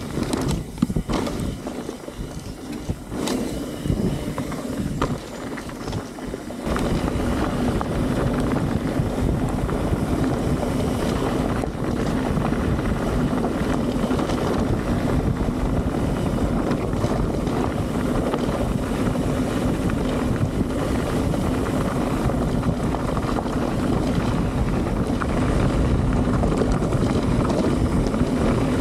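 Wind buffeting the helmet camera's microphone and tyre rumble from a mountain bike descending a gravel fire road. There are a few knocks and rattles over bumps at first, then about seven seconds in it settles into a steady, loud rush as the bike picks up speed.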